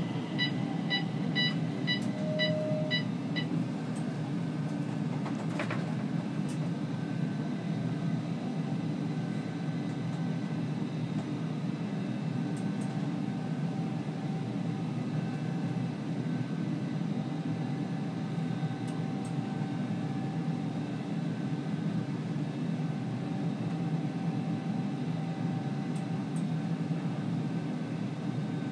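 Stockholm metro C20 train running with a steady low rumble and faint motor tones. A run of electronic beeps, about two a second, stops about three seconds in.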